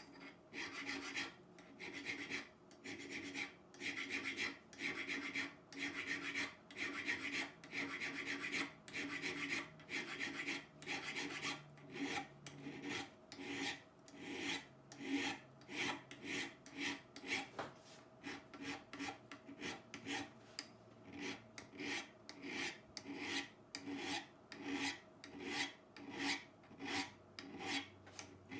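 Rhythmic rasping strokes of a shoemaker's steel edge iron being abraded by hand to clean off rust and restore it. The strokes become quicker and shorter about halfway through.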